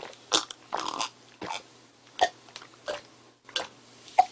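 A person gulping down a glass of mango juice, about seven swallows a little over half a second apart.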